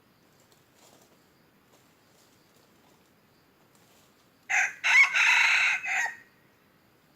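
A red junglefowl rooster crows once, about four and a half seconds in: a short first note, a longer middle and a clipped final note, over in under two seconds.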